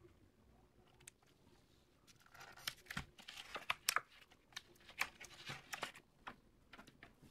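Clear plastic blister packaging cut with a utility-knife blade and pulled open, a run of crinkling, tearing and sharp clicks that starts about two seconds in and dies away near the end.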